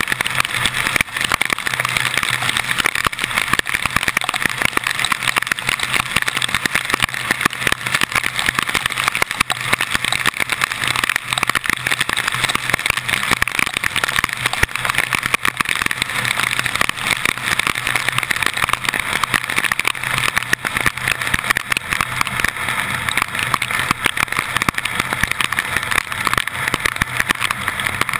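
Car driving through heavy rain on wet streets, heard from a camera housing on the hood: a steady rushing of wind, rain and tyres on wet road, with a low engine hum underneath.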